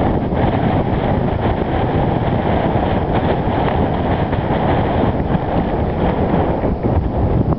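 Wind blowing across the camera's microphone: a loud, steady rush of noise.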